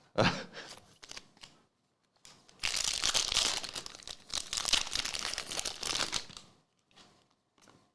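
Wrapper of a pack of basketball trading cards crinkling as it is torn open and handled. There are a few light clicks first, then about three and a half seconds of continuous crinkling starting about two and a half seconds in.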